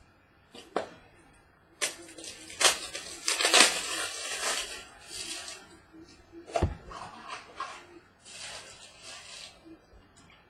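Rustling and crinkling of trading-card packaging being handled, with sharp clicks and knocks. The densest rustling runs from about two to five and a half seconds in, and a single thud comes at about six and a half seconds.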